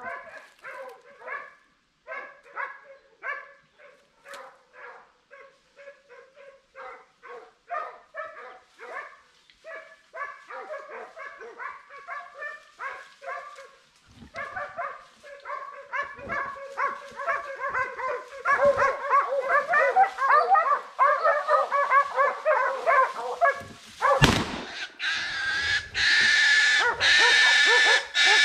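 Hunting dogs barking in quick, repeated barks that grow denser and louder as they close in. About 24 seconds in there is one sharp bang, followed at once by a loud, continuous high-pitched squeal.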